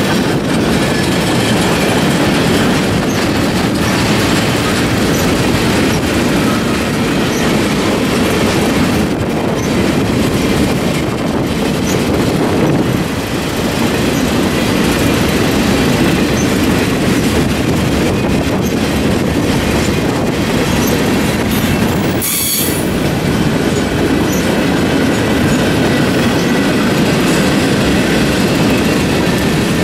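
Freight cars rolling past close by: a steady, loud rumble and rattle of steel wheels on the rails, with one brief disturbance about two-thirds of the way through.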